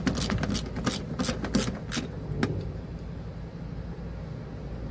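Small socket ratchet clicking as it is worked back and forth, tightening a nut down on a terminal post. A quick run of sharp clicks fills the first two and a half seconds, then only a low steady hum remains.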